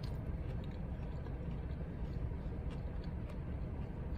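Steady low rumble of a car heard inside the cabin, with a few faint clicks of chewing.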